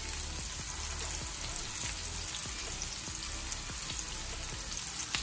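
Beef kababs shallow-frying in oil in a pan: a steady sizzle with small scattered crackles, and light taps of wooden spatulas as the kababs are turned over.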